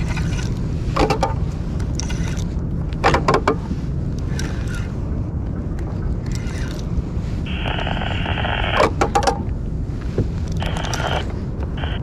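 Steady low rumble of wind on the microphone, with scattered clicks and rattles of fishing tackle handled on a kayak and two short buzzes, one about two-thirds through and one near the end.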